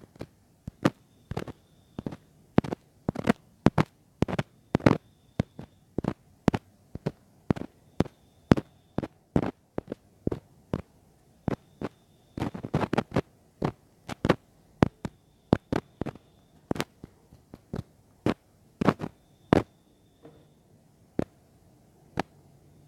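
A run of sharp, close-up clicks and pops into a mini microphone, irregular at about two or three a second, with a quick flurry a little past halfway.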